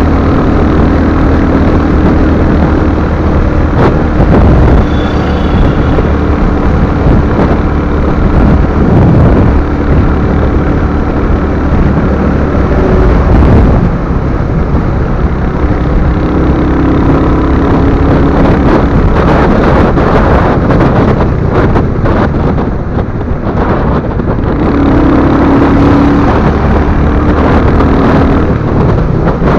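Royal Enfield Hunter 350's single-cylinder engine running steadily while riding, under heavy wind noise on the microphone.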